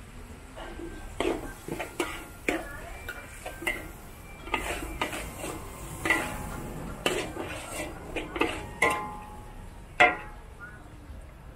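Metal spatula clanging and scraping against a steel wok while stir-frying noodles, in irregular sharp strikes roughly every half second, the loudest about ten seconds in.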